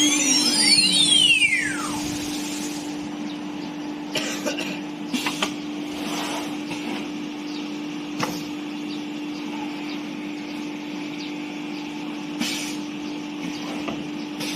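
ATC CNC router spindle winding down, its whine falling over the first two seconds. Under it runs a steady low hum, with a few short hisses and clicks of the kind an automatic tool change makes.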